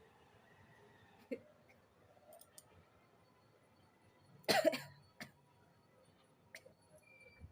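A woman's single short sneeze about halfway through, set off by tickling the inside of her nose with a grass stalk. A few faint clicks come before and after it.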